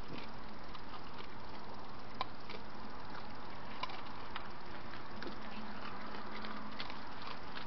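A badger and a red fox feeding on scattered food and from a plastic dish: a few faint, scattered clicks and ticks of chewing and crunching over a steady hiss.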